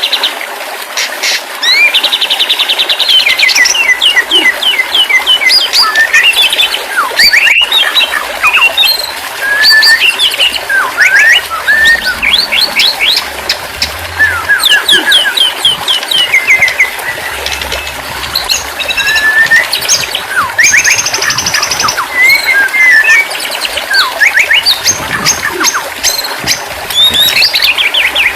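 White-rumped shama singing a loud, nearly unbroken song of fast trills, rapid runs of repeated chirps and clear sliding whistles.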